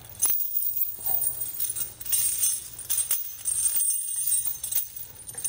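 Heavy steel D-link tire chains jingling and clinking as they are lifted off the floor and gathered up by hand, the links rattling against each other in several bursts.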